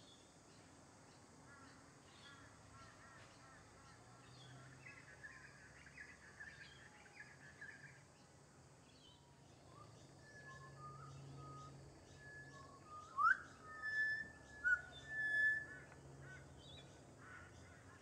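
Pied butcherbird singing in clear, pure whistled notes. A quieter run of short notes comes first; the loudest phrases, including a quick upward slur, fall in the second half.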